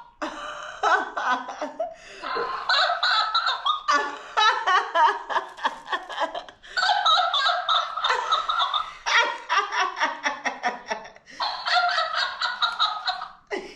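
A long stretch of high-pitched laughter, pulsing, with a few brief pauses.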